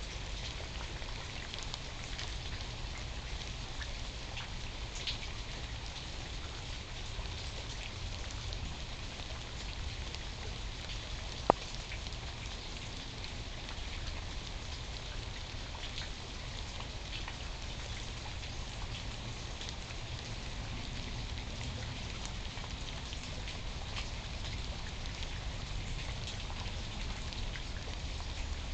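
Steady rain falling, with many small drop ticks close to the microphone over a low steady rumble. One sharp, louder click comes about eleven and a half seconds in.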